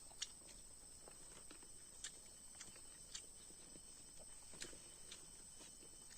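Faint eating sounds: scattered small clicks and smacks of someone chewing and eating a meal by hand, four of them a little louder, over a steady faint high whine.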